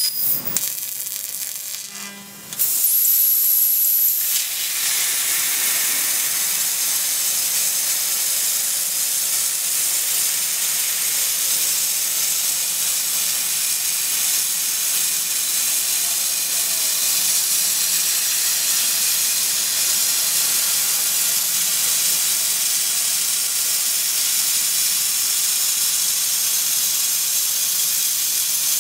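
12 kW fiber laser cutting 30 mm stainless steel with compressed air as the assist gas: a steady loud hiss of the air jet blasting through the cut. About two and a half seconds in, a louder burst of hiss with a thin high whistle lasts about two seconds before it settles to the even hiss.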